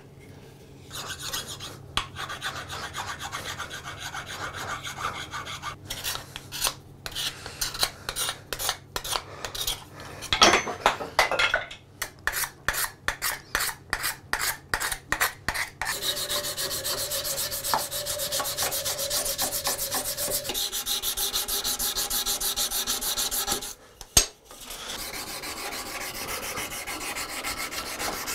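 Hand abrasion of hand-plane parts. Sandpaper rubbing first, then separate scraping strokes about two a second, then fast, even back-and-forth sanding on the wooden tote.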